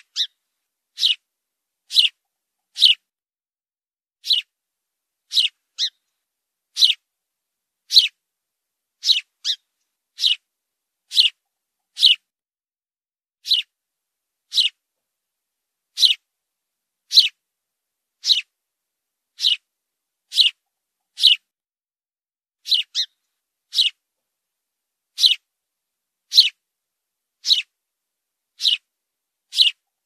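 A sparrow chirping: short, sharp, high single chirps about once a second, now and then two in quick succession, with no other sound between them.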